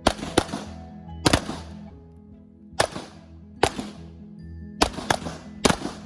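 Semi-automatic pistols firing: about nine sharp shots at uneven spacing, some in quick pairs, each trailing off in a short echo, over steady background music.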